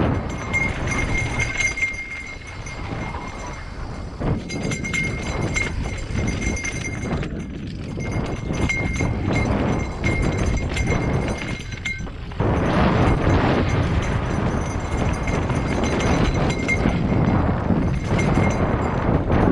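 Mountain bike riding down rocky dirt singletrack, heard from a camera on the rider or bike: tyres crunching over loose rock, the bike and mount rattling and clattering, and wind on the microphone. A thin steady high whine runs underneath until about twelve seconds in, where the sound turns louder and rougher.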